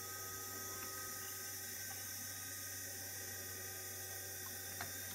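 Dynamotor of a WWII ARC-5 command set receiver running steadily, a hum with several steady whining tones over a hiss, as the warming receiver begins to load it. One click near the end.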